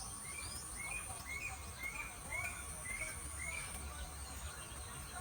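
Forest birdsong: a bird repeats a short, upward-hooked chirp about twice a second, over a steady high-pitched insect drone.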